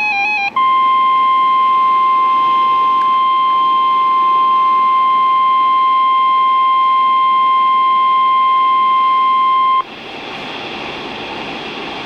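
NOAA Weather Radio's 1050 Hz alert tone: one loud, steady beep lasting about nine seconds, sounding the start of an Emergency Alert System warning. It follows the warbling end of the digital header burst about half a second in and cuts off sharply, leaving radio static hiss.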